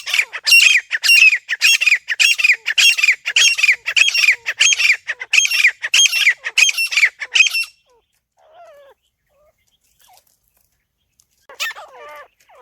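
Grey francolin (teetar) calling: a fast, loud run of repeated shrill notes, about two a second, that stops abruptly after roughly seven and a half seconds. After a few seconds of near quiet, a lower, wavering bird call starts near the end.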